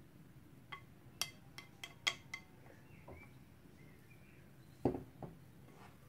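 A glass bowl clinking lightly against a nonstick pan, about six quick ringing clinks in the first couple of seconds as shredded vegetarian meat floss is tipped in. Near the end, a duller knock and a smaller one follow as chopsticks stir the dry floss in the pan.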